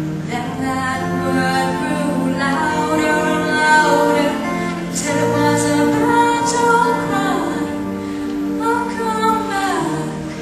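A woman singing a song over steady instrumental accompaniment.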